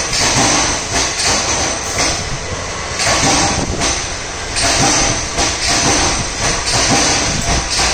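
Loud, steady hissing and rumbling machine noise that swells and dips every second or so.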